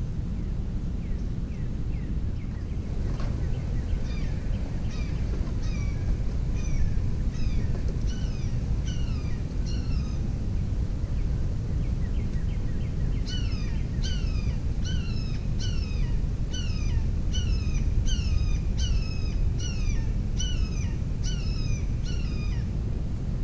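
A songbird calling over and over, a series of sharp down-slurred notes at about two a second, with a short break near the middle. A steady low rumble of background noise runs underneath.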